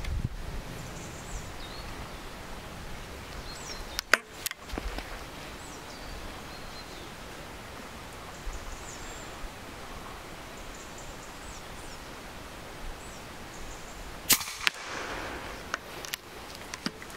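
Shots from an EDgun Leshiy 2 regulated PCP air rifle, each a sharp crack. One comes about four seconds in, with a second sharp click half a second after it, and a louder one comes about fourteen seconds in, with a brief ring after it. Birds chirp faintly throughout.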